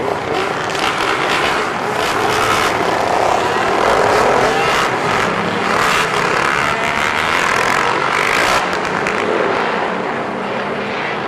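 A pack of dirt bikes and sport motorcycles riding past, several engines revving loudly over one another.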